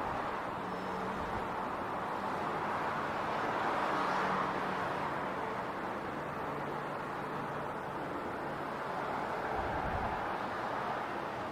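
City street traffic: a steady wash of vehicle and tyre noise with a low engine hum, swelling as vehicles pass, loudest about four seconds in and again near the end.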